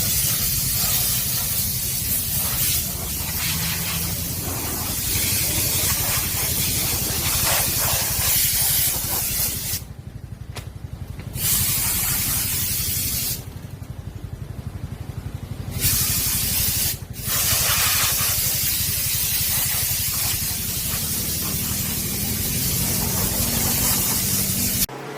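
Heavy wind noise rushing over the microphone, dropping away briefly a few times, over the low, fast pulsing of a BMW R nineT Scrambler's boxer-twin engine running on the move.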